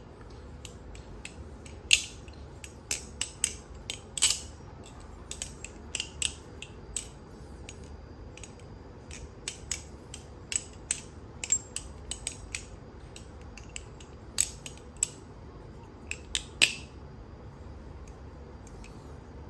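A balisong (butterfly knife) being flipped: irregular sharp metallic clicks and clacks as the handles swing round the pivots and strike closed, a few loud clacks among many lighter ticks.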